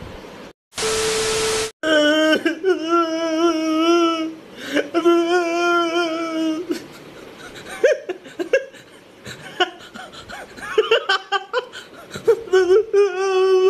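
A man wailing in long, wavering cries, with broken sobbing between them: mock, exaggerated crying. A short burst of hiss with a steady beep comes just before the crying starts, about a second in.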